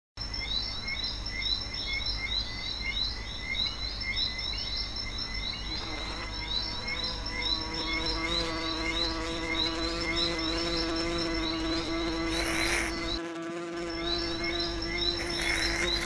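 Buzzing of a cartoon bee sound effect: a steady buzz that comes in about seven seconds in and holds, swelling briefly twice near the end. Behind it, rapid high chirping repeats several times a second throughout.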